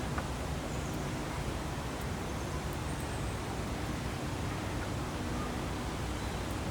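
Steady outdoor rushing noise with a few faint, high bird chirps.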